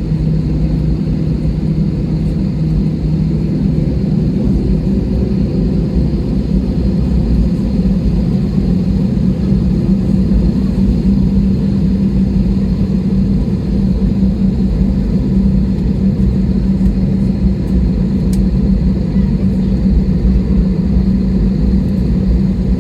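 Airliner cabin noise during taxi: the engines running at low power give a steady low rumble with a held hum, whose pitch steps up slightly about four seconds in.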